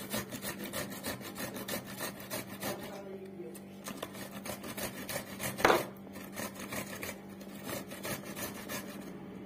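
Cucumber being grated on a metal hand grater: quick repeated rasping strokes, thinning briefly around three seconds in, with one much louder sharp sound a little before six seconds in.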